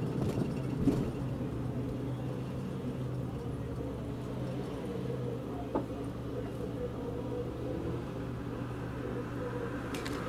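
Steady low engine and road rumble heard from inside a car in slow, stop-and-go traffic, with a single light click about six seconds in.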